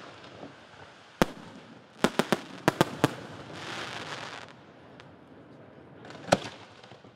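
Aerial firework shells bursting in sharp bangs: a single report, then a rapid cluster of about six, a spell of crackling hiss, and one loud bang near the end.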